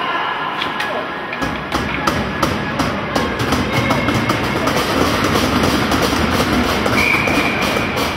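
Ice-rink arena din: a dense, noisy clatter of many sharp clacks and bangs that swells about a second and a half in and stays loud, with a brief high tone near the end.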